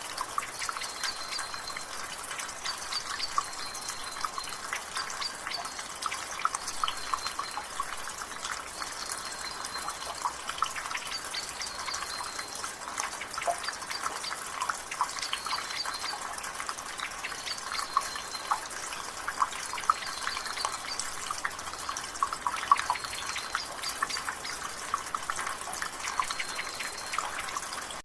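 Water dripping and splattering fast and steadily from a rain gutter, with rain. A bird repeats a short high chirp about once a second.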